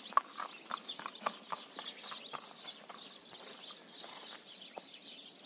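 A horse's hooves clopping on a paved path at a walk, several sharp strikes a second. The hoofbeats thin out and grow fainter about halfway through as it steps onto grass.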